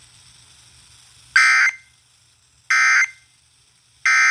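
Emergency Alert System end-of-message signal: three short bursts of SAME digital data tones, about a second and a half apart, marking the end of the severe thunderstorm warning.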